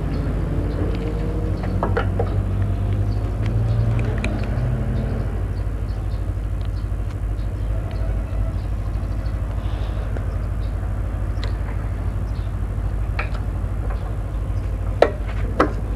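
Petrol dispenser running as fuel is pumped into a motorcycle's tank: a steady low hum, with two sharp clicks about a second apart near the end.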